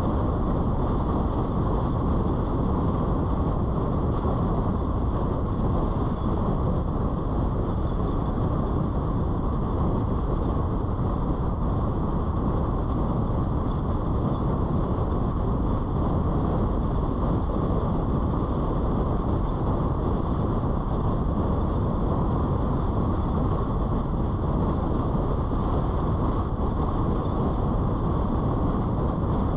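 Steady road noise from a car driving at city speed: tyres on asphalt with wind, an even sound that does not change.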